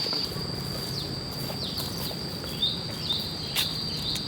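A bird calling in a series of short chirps that fall in pitch, over a steady high insect drone, with two sharp knocks near the end.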